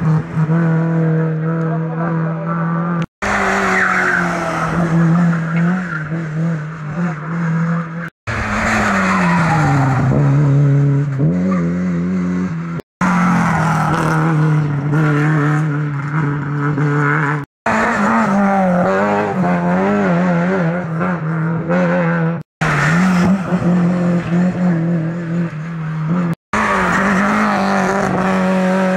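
Lada rally cars' engines running hard at high revs as the cars come through one after another, with tyres squealing; the revs fall away once near the middle. The sound cuts out to silence for a moment about every four to five seconds.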